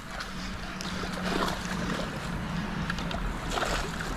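Hooked peacock bass thrashing and splashing at the surface as it is drawn in to the bank.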